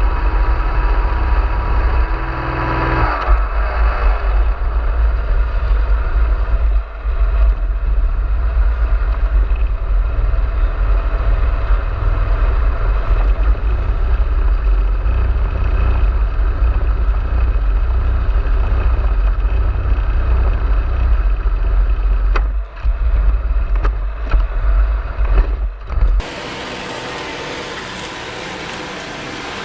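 A vehicle running: a loud, steady low rumble that cuts off suddenly about 26 seconds in, giving way to a quieter, even hiss.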